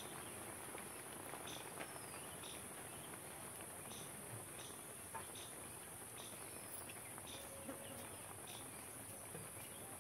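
Steady, high-pitched, faint drone of chirring insects.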